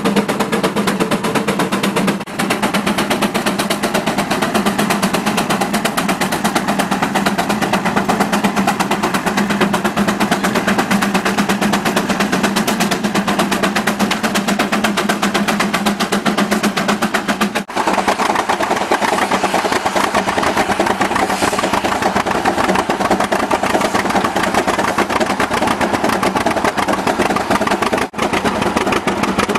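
Steam traction engine working hard under load pulling a gang plow, its exhaust beating in a rapid, steady rhythm.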